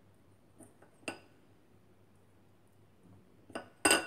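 Light clinks of kitchen dishware: a few short taps, the last and loudest near the end with a brief ring.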